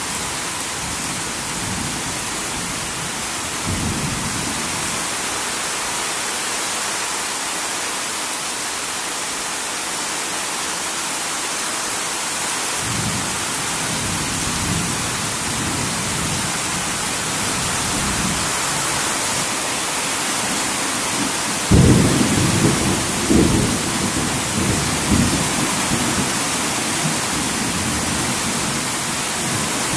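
Heavy rain falling steadily on a tin roof, with thunder rumbling low from about halfway through, then a sudden loud thunderclap about two-thirds of the way in, followed by further rumbles.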